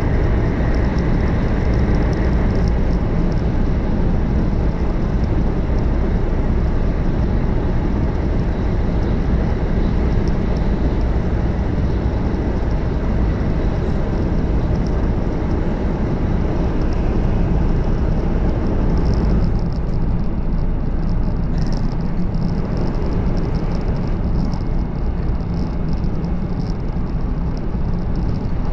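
Running noise of a 500 series Shinkansen at speed, heard inside the passenger cabin: a loud, steady rumble and rush of wheels on rail and air. It sounds hollow and boomy in a tunnel, then changes about two-thirds of the way through as the train comes out into the open.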